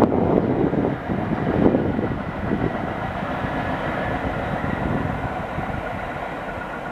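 A ten-car GE Arrow III electric multiple-unit train pulling away, its rumble and wheel noise fading steadily as it recedes.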